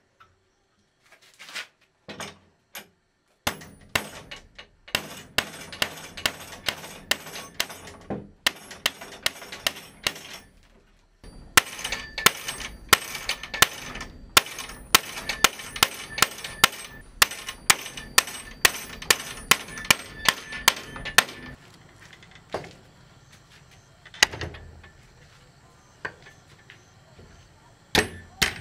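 Repeated hard strikes of a metal hand tool, about two a second, each with a short ringing clang. They come in runs with brief pauses, stop about two-thirds of the way through, and are followed by a few single knocks.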